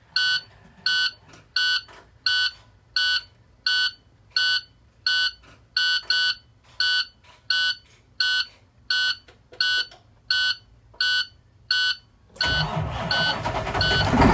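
The dashboard warning beeper of a 2010 International ProStar truck beeps steadily, about one beep every 0.7 seconds, with the ignition on. About twelve seconds in, the truck's diesel engine starts up and runs loudly under the continuing beeps.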